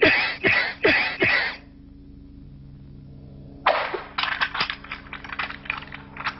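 Cartoon sound effects: four quick puffs, each with a falling thump, as puffs of cloud pop out. After a short pause comes a fast, rattling clatter of clicks.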